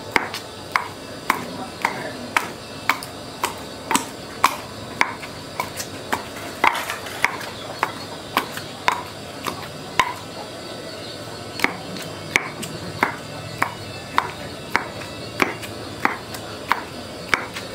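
Wooden pestle pounding fish paste in a stone mortar: a steady rhythm of about two strokes a second, each a sharp knock with a short ring.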